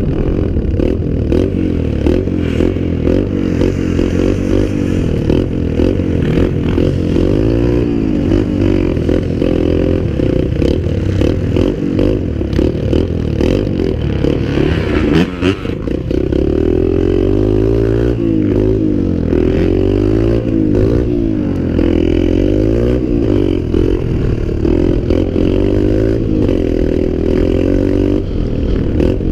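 Dirt bike engine running under way, its pitch rising and falling as the throttle is opened and closed, with a brief dip about halfway through.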